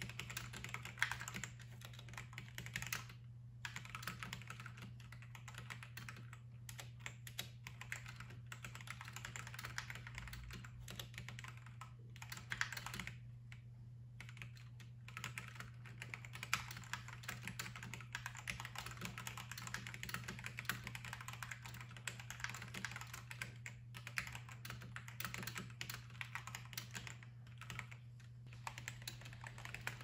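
Fast, continuous typing on a Gamakay K77 mechanical keyboard with Gateron Yellow linear switches, the board sitting on a bare desk without a deskmat. The typing breaks off briefly about three seconds in, around the middle and again near 24 seconds.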